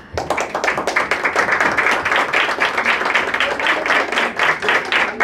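A small group of people applauding, dense hand clapping that breaks out all at once.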